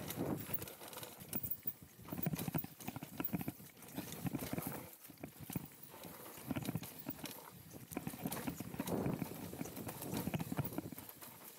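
Mountain bike rattling down a rough dirt singletrack, its tyres and frame clattering over bumps and roots in uneven bursts.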